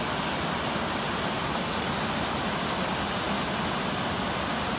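Small waterfall splashing into a rocky pool: a steady, even rush of falling water.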